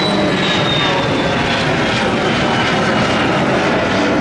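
Boston Dynamics LS3 legged robot walking, its engine-driven hydraulic power unit running with a loud, steady drone and a faint high whine that slowly falls in pitch.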